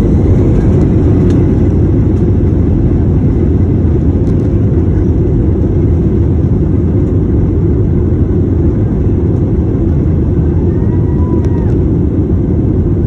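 Airbus A320 engines at takeoff power during the takeoff roll, heard inside the cabin as a loud, steady low roar.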